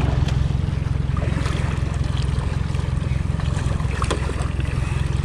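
Boat's outboard motor running at slow trolling speed: a steady low hum with a fine, even pulse.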